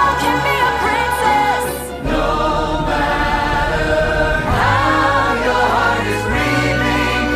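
Orchestral show music with a choir singing sustained, wordless-sounding notes over held bass notes; the harmony shifts about two seconds in and again near the end.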